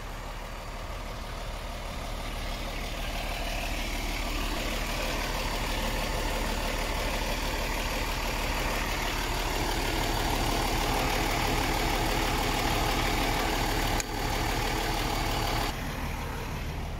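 Diesel engine of a 2019 MAN TGX 18.660 truck idling steadily, growing louder over the first several seconds and turning suddenly duller about a second before the end.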